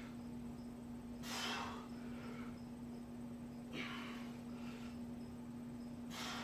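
A man breathing hard, with three or four forceful, hissing breaths a couple of seconds apart, as between exercise reps. A steady low hum runs underneath.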